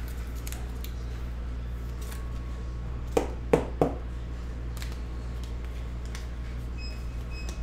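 Three quick clacks of a stack of trading cards being picked up and knocked against the table, a little past three seconds in, over a steady low hum.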